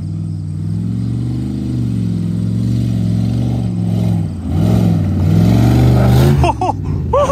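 Dodge 1500 pickup's engine revving hard as the truck accelerates toward a dirt jump. Its pitch rises, dips briefly, then climbs again to its loudest. About six and a half seconds in, the engine note breaks off as the truck hits the jump, and excited yelling follows.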